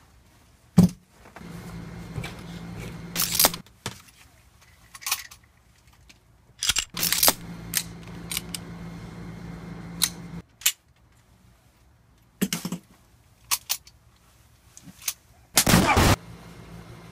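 Gun-handling sounds: a revolver and a rifle being loaded and readied, a magazine seated and actions worked, heard as about a dozen sharp metallic clicks and clacks at irregular spacing, with a longer rattling burst of about half a second near the end.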